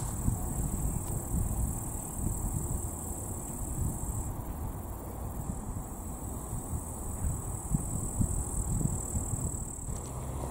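Steady high-pitched chirring of insects in a summer meadow, over a low, uneven rumble.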